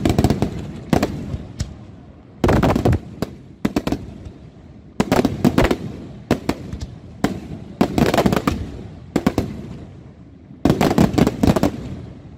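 Fireworks display: aerial shells bursting in quick volleys of loud bangs, several groups of rapid cracks separated by short, quieter gaps.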